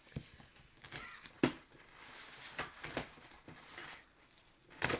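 A few faint, scattered clicks and taps of small nail-stamping tools being handled.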